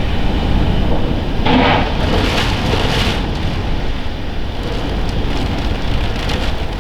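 Strong storm wind gusting and buffeting the camcorder's microphone with a low rumble, swelling into a louder rush about a second and a half in before easing back.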